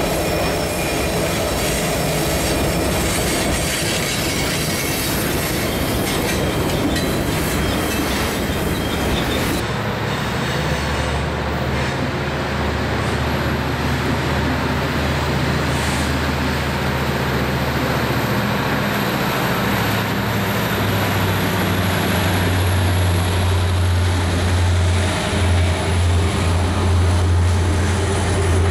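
Freight cars rolling past with wheel squeal and clatter. Then, about ten seconds in, the low steady drone of an approaching Norfolk Southern SD80MAC's 20-cylinder EMD diesel prime mover, growing louder as the locomotive draws near and passes.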